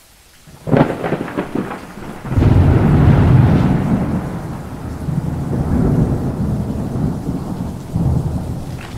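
Thunder with rain: a sudden crack about a second in, then a long low rumble that swells and eases in waves.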